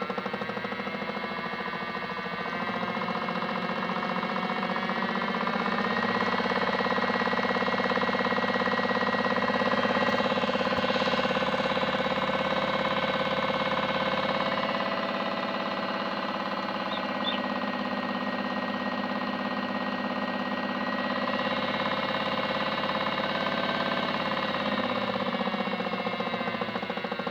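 Modified Miele W1 toy washing machine running a spin: the small motor and drum whine rises in pitch over the first few seconds as the spin speeds up, holds steady, then falls in pitch near the end as the spin slows.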